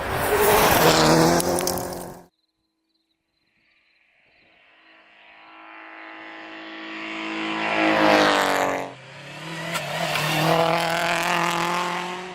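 Rally car engines at high revs in two edited clips. The first car runs hard and is cut off abruptly about two seconds in. After a short silence a second car approaches with its engine growing louder, passes close about eight seconds in with its pitch dropping, then keeps accelerating hard.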